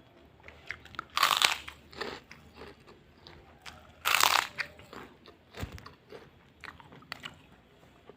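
Crunchy food being bitten and chewed: two loud crunching bites, about one second and four seconds in, with smaller crackly chewing crunches between them and a short low thump in the middle.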